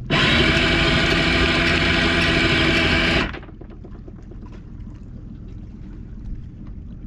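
A motor on a small motorboat running loudly and steadily for about three seconds, then cutting off abruptly, while the anchor is being set just after it was dropped.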